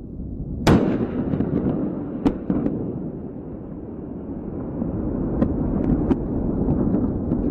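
Rocket explosion: a sharp, loud blast about a second in, followed by a continuous low rumble broken by a few sharp cracks.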